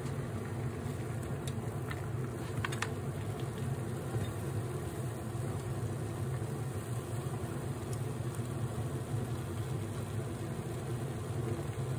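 Steady low hum of a running kitchen appliance beside the hob, with a few light clicks of wooden chopsticks against the metal tamagoyaki pan about two to three seconds in.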